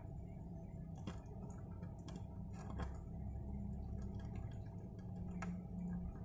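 Young kittens shuffling about in a wooden box: scattered soft clicks and scratches of paws and claws on wood, over a low steady hum.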